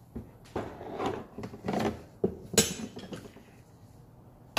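Metal parts clinking and knocking as steel fuel rails and pipes are picked up and handled on a workbench: a string of irregular knocks and rattles, the loudest about two and a half seconds in, and another sharp knock at the very end.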